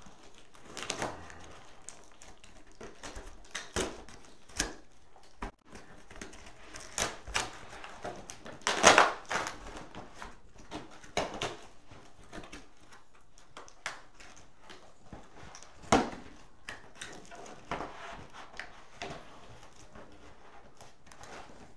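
Cardboard box being torn open by hand: scattered crackles, scrapes and clicks of cardboard and tape, with a louder rip lasting about a second about nine seconds in and a sharp snap near sixteen seconds.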